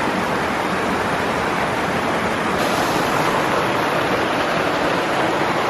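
Water of a small rocky stream rushing and tumbling over boulders in a steady, even rush.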